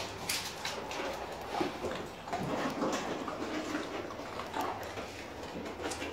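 Dobermans eating dry kibble from stainless steel bowls: irregular crunching and clinks of food against metal.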